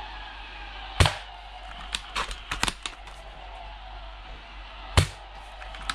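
Two shots from a scoped airsoft rifle, about four seconds apart: one about a second in and one near the end. Several smaller clicks come between them.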